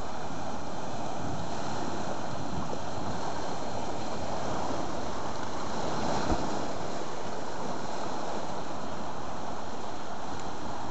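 Ocean surf washing over and around a lava-rock boat ramp, a steady rush of swells that rises a little about six seconds in. There is one brief knock just after.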